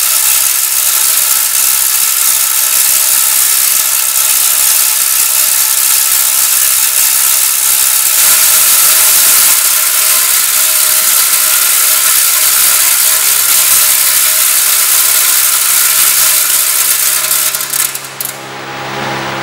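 Loud, continuous mechanical rattling with a steady hum of several tones underneath, which drops away sharply near the end.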